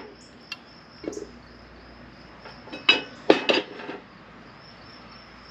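Aluminum pot-metal head of a bubble wheel balancer clinking and knocking against its steel pin and post as it is slid down and handled by hand. There are a few isolated knocks, then a quick cluster of metal clinks with brief ringing about three seconds in.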